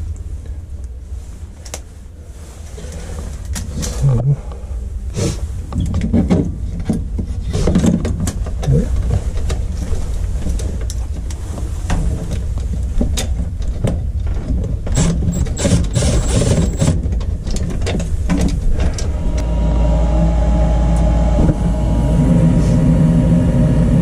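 Tools and parts clicking and knocking inside a Goodman gas furnace over a steady low hum. About three-quarters of the way through, a motor in the furnace starts and keeps running with a steady hum.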